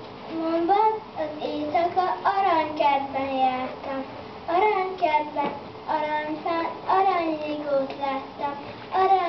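A group of young children singing a song together, in short phrases of held notes.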